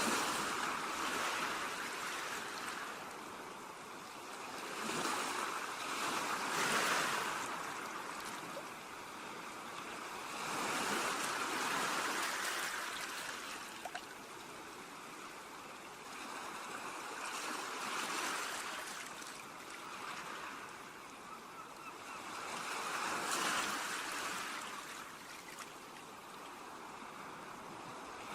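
Ocean waves breaking and washing up a beach, a steady surf hiss that swells and ebbs about every five or six seconds.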